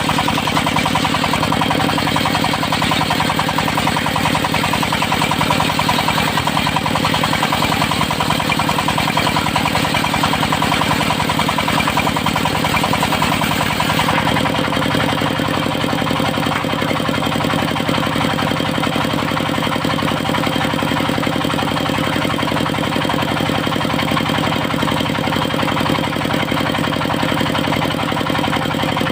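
Engine of a mobile circular sawmill running steadily. Its note changes about halfway through and settles into a steadier, slightly softer sound.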